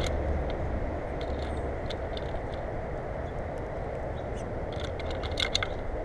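Scattered light clicks and taps of a European starling's bill and feet on the nuts and metal tray of a platform bird feeder, with a quick cluster of them near the end, over a steady low rumble.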